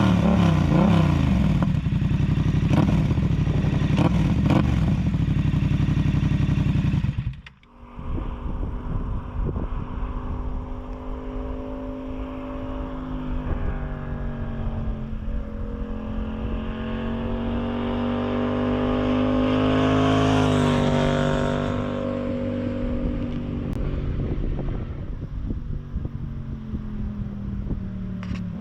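Yamaha MT-07's parallel-twin engine running through an SC Project CR-T exhaust with the dB killer fitted. It is revved quickly up and down, then held at high revs. After a cut about seven and a half seconds in, it runs at lower, varying revs that rise and fall around twenty seconds in.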